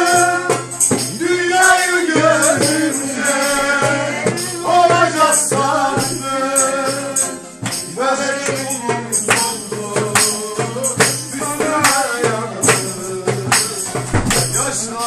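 Live folk singing accompanied by a shaken jingle tambourine, hand claps and a plucked string instrument. The sung line is strongest in the first half; after that, sharp tambourine and clap strikes keep time more prominently.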